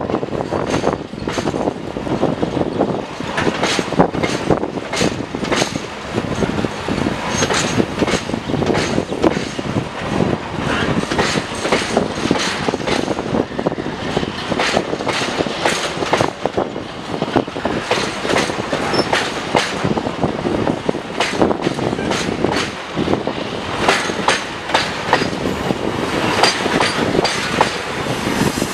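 Freight train hauled by an Indian Railways WDG4G diesel locomotive passing, its engine working under load while the wheels click over the rail joints many times over a steady rumble.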